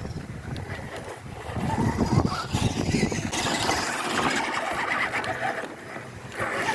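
Brushed electric motor and gear drivetrain of a 1/10-scale RC crawler (FTX Kanyon, 64-turn motor) running, the level rising and falling as it is driven.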